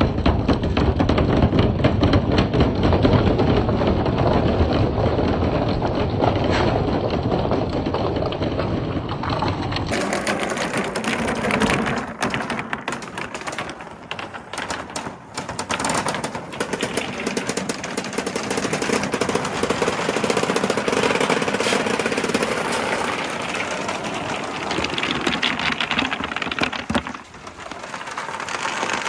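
Many balls rolling and clattering down a wooden marble-run track in a continuous rattling rumble. About ten seconds in the sound changes to a lighter clatter of separate clicks and knocks.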